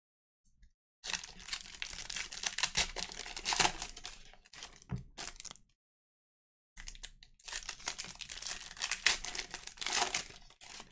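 Foil trading-card pack wrappers being torn open and crinkled by hand, in two bouts of dense crackling with a silent pause between.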